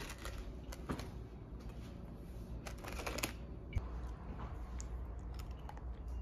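Thin plastic clamshell container being handled, with light crackling and scattered clicks, the busiest burst about three seconds in.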